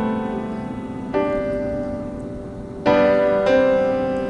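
Background piano music: slow chords struck three times, each left to ring and fade.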